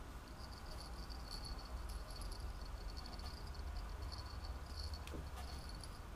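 Small bell inside a crocheted elephant rattle toy tinkling faintly and high as the toy is turned and handled, with a single click about five seconds in.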